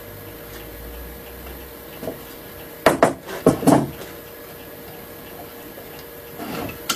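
Wooden knocks and scrapes from handling and trying out a hand-made wooden rebate plane: about four short strokes close together around three seconds in, and lighter clatter near the end, over a faint steady hum.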